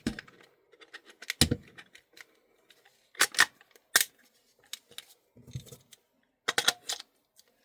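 Double Eagle airsoft gas blowback magazine being worked into the magazine well of a Tokyo Marui MWS rifle: scattered sharp clicks and scrapes of metal parts, the magazine going in stiffly. It is a tight, harder-than-usual fit.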